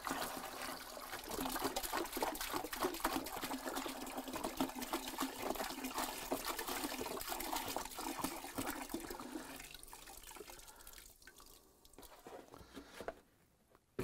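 White vinegar pouring from a plastic gallon jug into a plastic bucket that already holds vinegar, running steadily for about nine and a half seconds and then trailing off.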